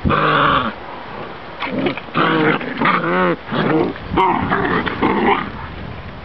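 Seven-week-old Kangal puppies growling and yapping in rough play: a run of about seven short, pitched calls.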